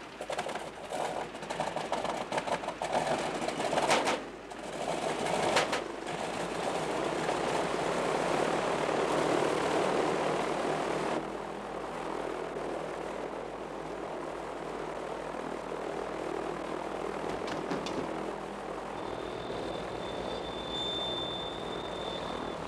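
Radial aircraft engine of a twin-engine bomber starting up: it coughs and sputters unevenly for the first few seconds, then catches and runs steadily with the propeller turning. About eleven seconds in it drops to a quieter, steady drone.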